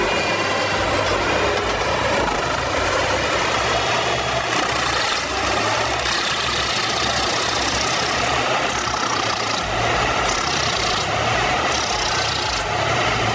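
A large machine's engine running steadily, with a few brief surges of higher-pitched noise between about four and twelve seconds in.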